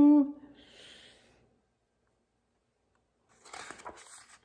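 Paper pages of a hardcover picture book being turned by hand, a rustle with small crackles starting about three seconds in, after a silent pause.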